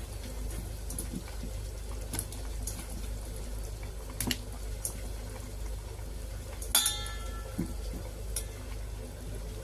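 Kitchen utensils and ingredients clinking against a braising pot on the stove, a few scattered clicks over a low steady hum, with one louder ringing metal clink about two-thirds of the way through.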